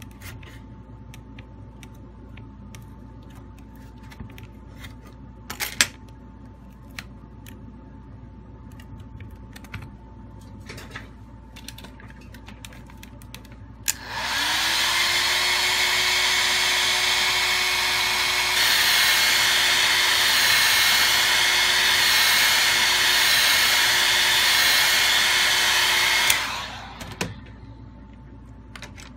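Handheld hot air gun blowing onto a phone's back glass to soften its adhesive: a loud steady rush of air with a motor whine that rises as it spins up about halfway in, then cuts off near the end. Before it there are a few light clicks and taps.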